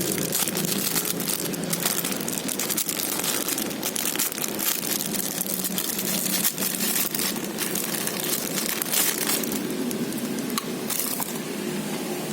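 Packaging being handled during an unboxing: irregular crinkling and crackling, with many small clicks throughout.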